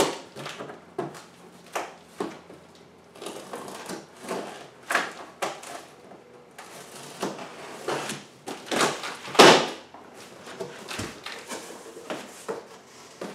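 A large cardboard shipping box being opened by hand: irregular scraping, rustling and tearing of cardboard and packing tape, loudest a little past the middle.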